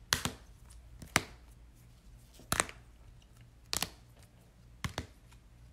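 Five sharp plastic clicks and taps, spaced about a second and a quarter apart, some of them doubled, as plastic card holders are handled while being cleaned.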